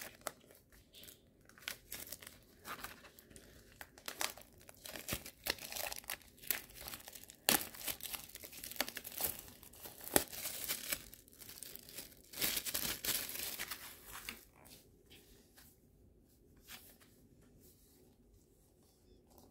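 Plastic shrink wrap being torn and crumpled off a CD case: sharp, irregular crackling crinkles that thin out to faint handling sounds after about fourteen seconds.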